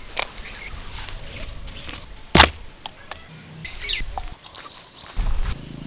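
An egg cracked with a knife blade, a sharp crack at the start, followed by scattered knocks and handling sounds as spice paste is mixed and rubbed onto a whole pomfret by hand. A bird chirps briefly in the background.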